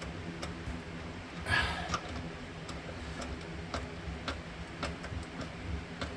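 Light clicks and taps, roughly two a second and unevenly spaced, of small disposal fittings being handled and fitted under the sink, with a short rustle about a second and a half in, over a faint steady low hum.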